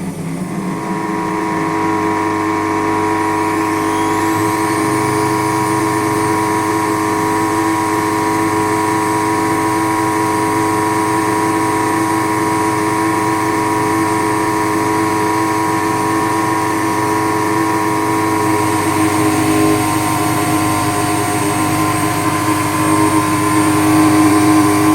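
Indesit WS84TX washing machine draining and spinning: its drain pump motor drones with a steady, loud, many-toned hum and vibration, a short rising whine about four seconds in, and it gets a little louder near the end. This is the abnormal noise the owner traces to a faulty drain pump and a clogged hose.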